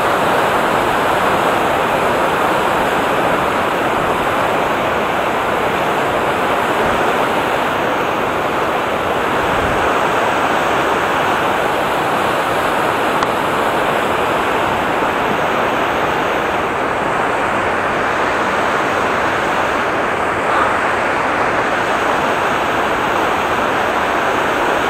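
Fast mountain river rushing over rocks, a loud steady wash of water noise.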